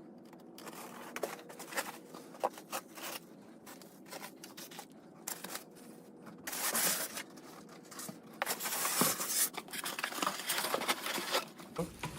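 Handling sounds from packaging or parts being worked with by hand: scattered clicks and knocks, with longer stretches of tearing or crinkling noise about six and a half seconds in and again from about eight and a half seconds in.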